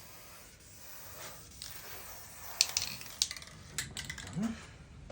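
Scraping carbon and oily deposits off the inside of a Petter A1 stationary engine's cylinder head with a metal tool: a faint scratching, then several sharp metallic clicks and taps about halfway through.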